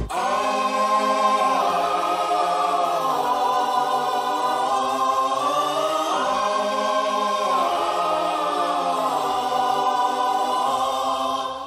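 Music: choir-like voices holding slow sustained chords with no beat, fading out near the end.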